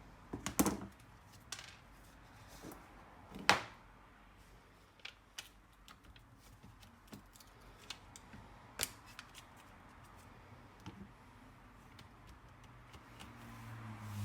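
Irregular sharp clicks and taps of hard plastic and small parts being handled while an Acer Aspire E5 laptop is disassembled, with the loudest knock about three and a half seconds in.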